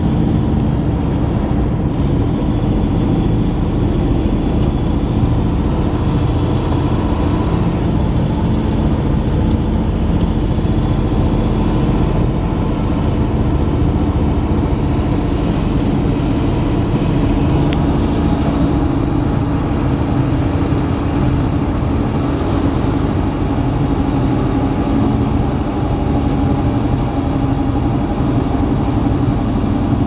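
Steady road and engine noise inside a car's cabin while cruising on a wet, snowy highway. The drone holds even throughout.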